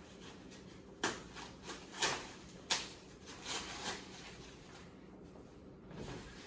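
Roof rack parts and their packaging being handled: several short scrapes and knocks in the first four seconds, then quieter handling.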